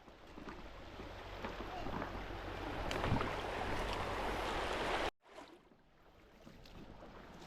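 Rushing creek water, a steady hiss that grows louder, stops abruptly about five seconds in and then builds up again.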